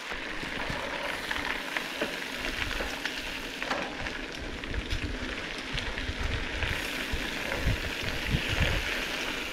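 Mountain bike rolling downhill on a rough dirt trail: a steady crackling hiss from the tyres, with many small ticks, and irregular low rumbles that grow stronger in the second half.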